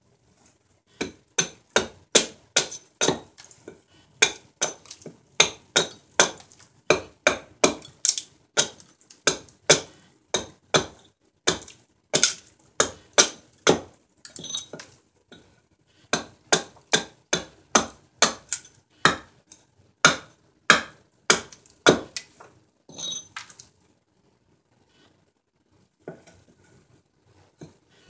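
Small carving axe chopping into a silver birch spoon blank on a chopping stump: a steady run of sharp chops, about three every two seconds, with a short pause about halfway and stopping a few seconds before the end.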